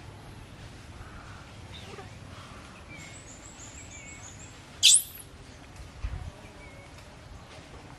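Faint high chirping, then one loud, shrill animal call rising steeply in pitch about five seconds in, followed by a dull thump.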